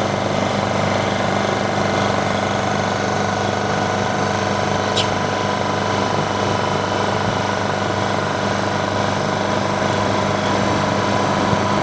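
Vacuum pump of an OCA vacuum laminating machine running steadily with an even mechanical hum, drawing the laminating chamber down toward full vacuum before the screen is pressed. A faint click about five seconds in.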